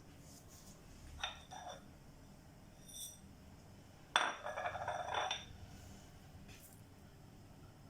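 Glassware and kitchen utensils clinking and clattering. There are a few light knocks early on, a short ringing clink about three seconds in, and a louder rattling clatter lasting about a second soon after.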